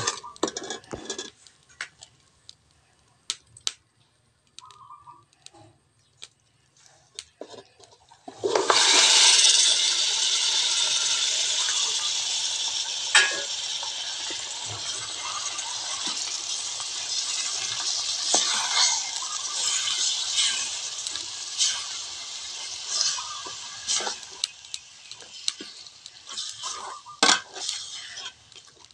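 A metal ladle clinks a few times against an aluminium pot of caramelized sugar. About eight seconds in, a loud sizzle starts suddenly as raw pork pieces go into the hot caramel, then slowly dies down to a steadier sizzle, with clinks and scrapes of the ladle as the pork is stirred.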